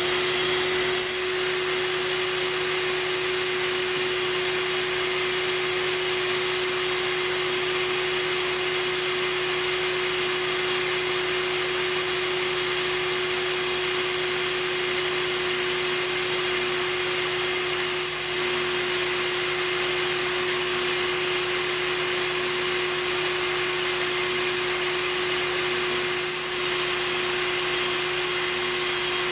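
Bee vacuum running steadily, a constant motor whine over rushing air, with a generator humming underneath; the suction sound dips briefly twice.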